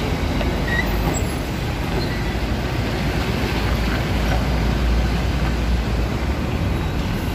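Diesel concrete mixer truck driving past close by and pulling away over dirt, a steady low engine rumble with tyre and rattle noise that swells briefly midway.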